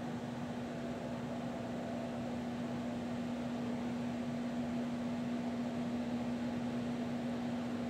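Steady mechanical hum: one constant low tone over an even hiss, unchanging throughout.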